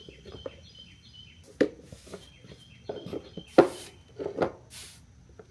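Handling noise: a handful of separate knocks and clunks of objects being moved and set down, a second or so apart, the loudest about three and a half seconds in, with a short hiss near the end.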